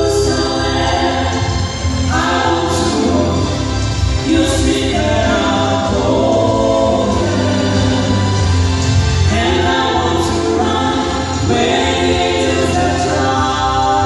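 A mixed vocal trio, one male and two female voices, singing a gospel song in harmony through handheld microphones, over a steady low accompaniment.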